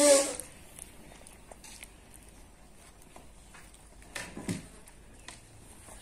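A short, loud voice-like sound right at the start, then faint clicks of a rhesus macaque handling and eating a piece of roti, with a brief thump about four seconds in.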